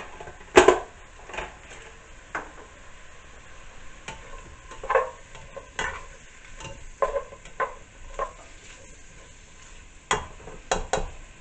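Sliced sausage and green peppers frying in olive oil in a pot, stirred with a cooking spoon. A sharp clatter comes about half a second in, then scattered knocks and scrapes of the spoon against the pot over faint sizzling.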